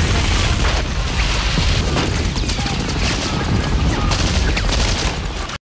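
A dense, rapid barrage of crackling bangs over heavy low booms, like a burst of gunfire with explosions, which cuts off suddenly near the end.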